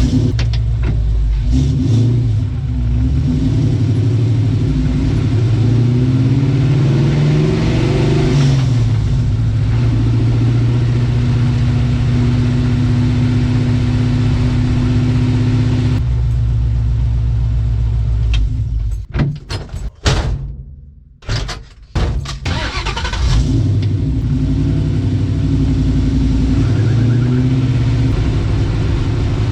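Mustang's Coyote V8 engine pulling the car along, its pitch climbing and falling as it accelerates through the gears, then holding steady at cruise. The sound briefly breaks off a little past two-thirds through, then picks up and climbs again.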